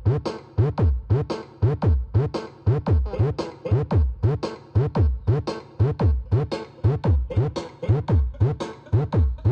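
Electronic dance music with a drum-machine beat played loud through a mobile sound system's twelve subwoofers in a bass test: deep kick drums that drop in pitch, about two a second.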